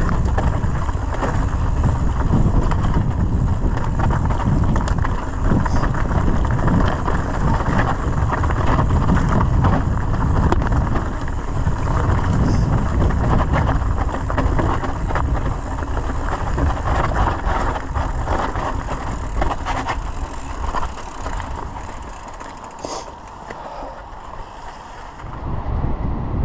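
Mountain bike riding down a rocky trail: tyres rumbling over loose stones and the bike rattling, with wind buffeting the microphone. The noise drops for a few seconds near the end, then picks up again.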